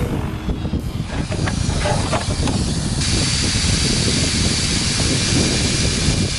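Wind buffeting the microphone, a fluctuating rumble and hiss, with a steadier, brighter hiss taking over about three seconds in.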